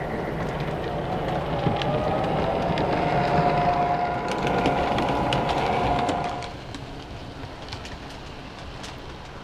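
O-gauge model Denver and Rio Grande F3 diesel locomotives, run through MTH DCS sound, rumble and click over the rails as they come close and pass. A steady multi-note tone is held for a few seconds and stops about six seconds in. After that the sound drops to the quieter rolling of the passenger cars.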